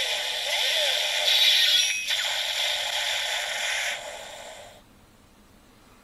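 Kamen Rider W toy's electronic Maximum Drive finishing-attack effect played through its small speaker. It is a loud hissing, crackling noise with no bass that breaks off for a moment about two seconds in, then fades out about five seconds in.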